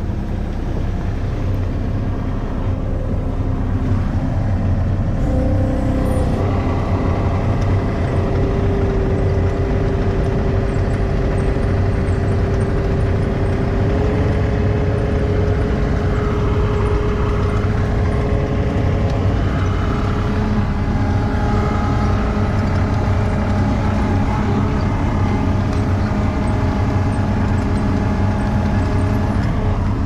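ASV RT-40 compact track loader's diesel engine running under way, heard from inside the operator's cab, with a steady hydraulic whine over the engine rumble. The engine and whine pitch shifts about six seconds in, again around fourteen seconds, and again around twenty seconds.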